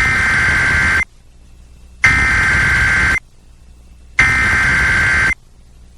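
Emergency Alert System SAME header: three buzzing bursts of digital data tones, each about a second long and about two seconds apart, coding the start of a severe thunderstorm warning.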